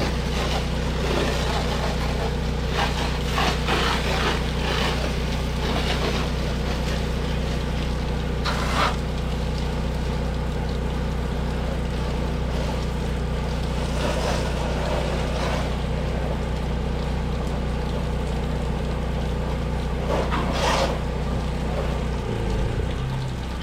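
Motor of a soft-wash rig's pump running steadily while a hose sprays rinse water onto house siding, the spray hissing louder in several brief surges. Near the end the motor's pitch shifts.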